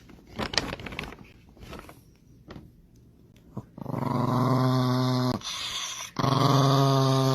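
A dog growling: two long, steady growls, the first about four seconds in and the second near the end, after a few scattered knocks and rustles.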